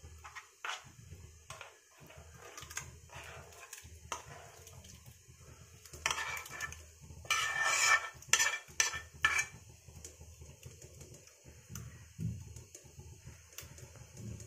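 A metal spoon and ladle scrape and clink against a non-stick pan and a steel plate as thick semolina batter is scooped out and spread. The scraping is busiest and loudest from about six to nine and a half seconds in.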